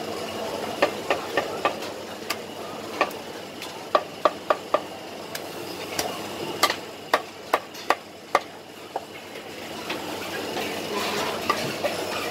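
Cleaver chopping poached Hainanese chicken on a thick wooden chopping board: sharp knocks at uneven spacing, with quick runs of chops about four seconds in and again between six and eight seconds, over a steady hum of busy stall noise.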